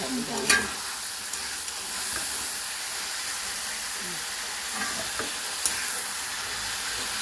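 Shrimp frying in hot oil in a wok, sizzling steadily, while a spatula stirs them and scoops them out. A few sharp clicks of the spatula against the wok, the loudest about half a second in.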